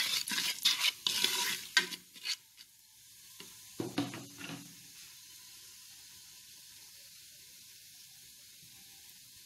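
Whole spices (cinnamon stick, anise, cardamom and seeds) frying in hot oil for a tempering. Dense crackling for the first couple of seconds and a short burst about four seconds in, then settling to a faint steady sizzle.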